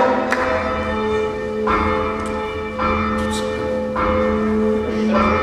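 Newly installed church bells rung by hand with a rope, about five strokes a second or so apart, each leaving a long ringing tone over a steady hum of the bells' ring.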